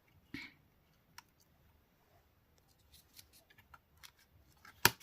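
Small clicks and taps of a mobile phone's plastic parts and circuit board being handled and fitted back together, with one sharper, louder click near the end.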